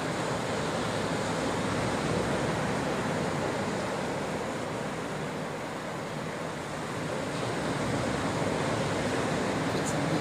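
Ocean surf washing onto a beach, a steady rush of breaking waves that eases a little about six seconds in and builds again.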